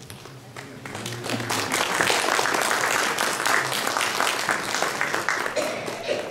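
Audience applauding, many hands clapping: it swells over the first second or so and then holds steady.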